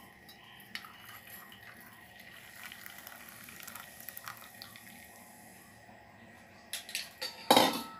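Hot herbal flower tea poured from a steel pot through a plastic tea strainer into a steel cup: a faint trickle of liquid with small ticks, then several sharp knocks near the end, the loudest about half a second before the end.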